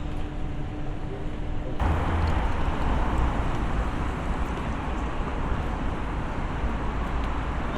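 City street traffic noise, a steady rumble of vehicles. A low machine hum at first gives way abruptly, about two seconds in, to louder traffic rumble.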